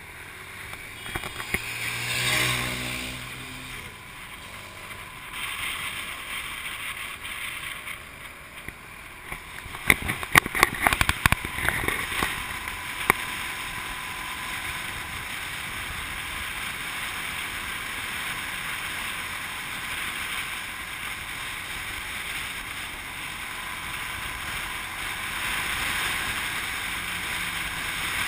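Riding pillion on a motorbike taxi in city traffic: steady rush of wind and road noise over the motorcycle, with a falling engine-like note about two seconds in and a spell of sharp crackles on the microphone around ten to thirteen seconds in.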